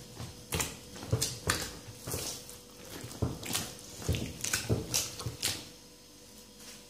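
Hands pressing and gathering soft, wet msemen dough in a clay bowl: a series of short wet squelches, about two a second, that stop a little before the end. The dough is only being gathered, not kneaded, after a second sprinkle of water.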